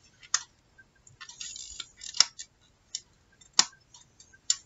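Clear plastic CD jewel case halves being pushed back together at the hinge: four sharp plastic clicks and some lighter ticks, with a short scrape of plastic on plastic about a second and a half in, as the hinge tabs are worked into their sockets.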